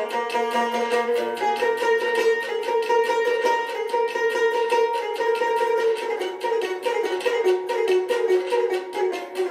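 Solo Azerbaijani tar played with a plectrum: a lively folk dance melody in quick, even picked strokes over ringing notes.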